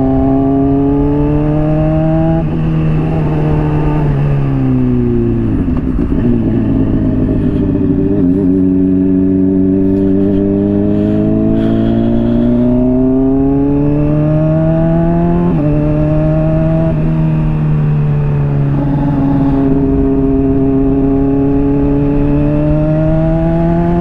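Honda CBR600RR inline-four engine with a slip-on exhaust pulling through the gears while riding: the engine note climbs slowly and drops sharply several times as it shifts up, with steady wind rush underneath.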